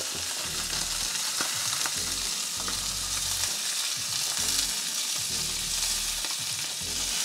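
Skin-on trout fillets sizzling in hot oil in a nonstick frying pan, a steady hiss, with a few light scrapes as a wooden spatula slides under one fillet and flips it over, its skin crisped and browned.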